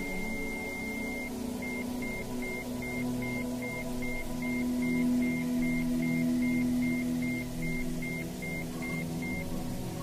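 Ambient meditation drone of layered sustained tones, with a high pure tone that turns into a regular pulsing beep of about three beeps a second about one and a half seconds in, and stops shortly before the end.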